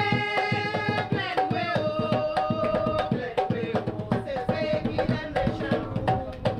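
Live Caribbean folk music: fast, driving hand drumming on wooden hand drums, with a woman singing held notes over the beat.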